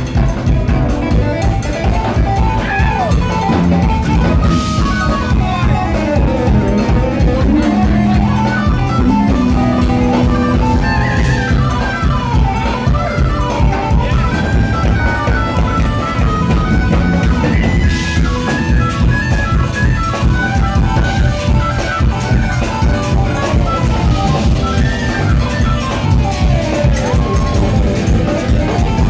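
Live jazz-fusion band playing loud: electric bass, drum kit and electric guitars, with gliding melodic lines over a busy beat. The sound is rough and overloaded from being recorded right next to the stage.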